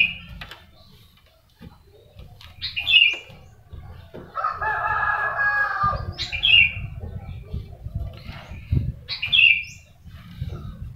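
A rooster crows once, about four seconds in, with short high chirps repeating about every three seconds. A cloth rubs on window glass underneath.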